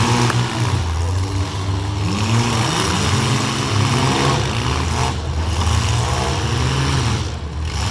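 Engines of several modified compact demolition-derby cars running and being revved up and down again and again over a steady low drone.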